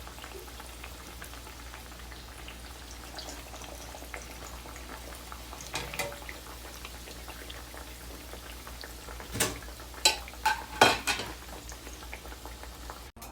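Bagia fritters deep-frying in hot oil with a steady sizzle. A few sharp clicks and knocks come through, one about six seconds in and several close together in the second half.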